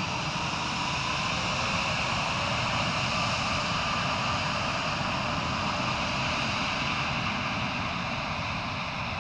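Airbus A220-100's Pratt & Whitney PW1500G geared turbofan engines running at low thrust while the jet taxis, a steady whine over an even rush of jet noise.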